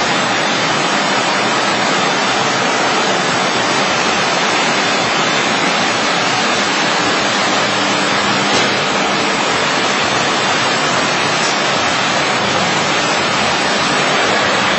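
Busellato Jet CNC nesting router machining a sheet panel: the spindle cutting and the machine's extraction make a loud, steady noise with no breaks.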